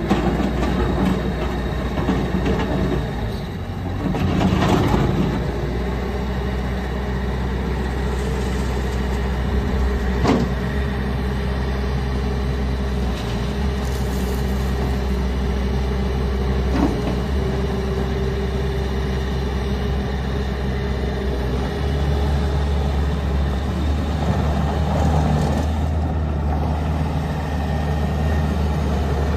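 Bobcat S590 skid steer loader's 66 hp Doosan diesel engine running steadily, with a few knocks and clatters over it. The engine note shifts about two-thirds of the way through.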